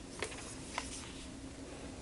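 Small cardboard product box being handled and turned over in the hands: faint rubbing with two short clicks in the first second, over a faint steady low hum.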